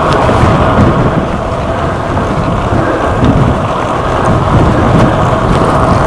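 Wind buffeting the microphone of an action camera on a moving bicycle: a loud, steady low rumble.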